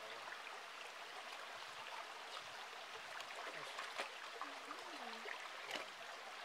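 Shallow stream trickling over rocks: a faint, steady rush of running water with small splashes and ticks.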